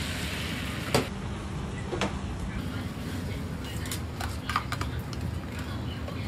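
Griddle-stall kitchen clatter: metal utensils and trays knocking, two sharp knocks about a second apart, then a quick run of lighter clinks, over a steady low hum.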